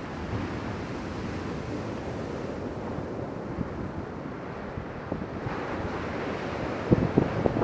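Steady rushing wind noise buffeting the microphone, with a few short low thumps near the end.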